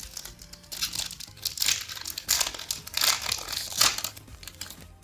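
Foil booster-pack wrapper crinkling and tearing as a Pokémon card pack is handled and opened, in a run of noisy bursts from about a second in to near the end.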